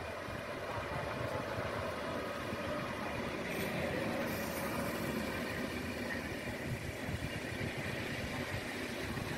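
Electric-locomotive-hauled PKP Intercity passenger coaches rolling past on the rails, a steady rumble of wheels and running gear.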